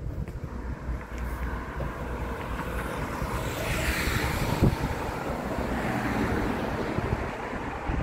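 A vehicle passes, its noise building to a peak about four seconds in and then fading, over a low rumble of wind on the microphone.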